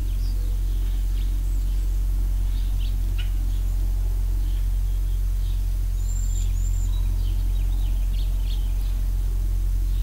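Steady low rumble, like wind on the microphone, under small birds chirping and calling throughout, with two short high whistled notes about six seconds in.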